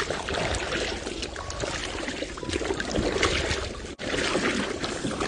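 Water splashing and trickling with small knocks as a submerged fish-trap cage is hauled up out of the water.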